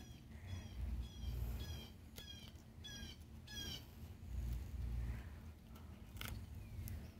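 A songbird repeats a short falling chirp about six times over some three seconds, each note louder than the last, over a low rumble. Near the end comes a single sharp snip of pruning shears cutting a vine stem.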